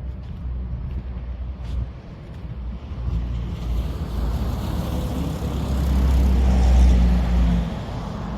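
A motor vehicle passing, its noise swelling over a few seconds, loudest about seven seconds in, then easing off, over a low rumble of wind on the microphone.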